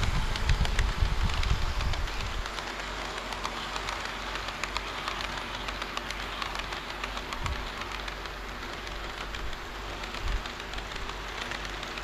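HO gauge model train rolling along the layout track: a steady clatter of small wheels full of fine clicks, louder and with more low rumble for the first two seconds, then settling to an even running noise.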